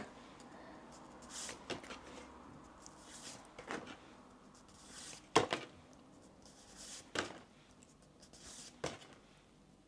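Cardstock postcards handled and shown one after another: soft paper rustles and a few light taps, the sharpest about five and a half seconds in.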